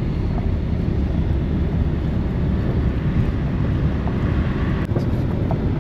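Steady low rumble of a car driving along a road, engine and tyre noise heard from inside the vehicle, with wind buffeting the microphone. A single brief click near the end.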